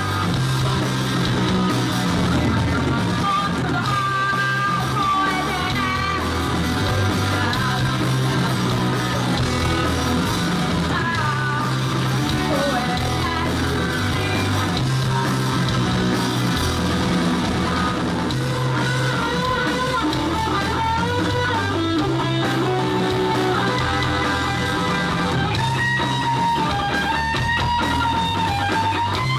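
A rock band playing live: electric guitars over bass and a drum kit, with a repeating bass line.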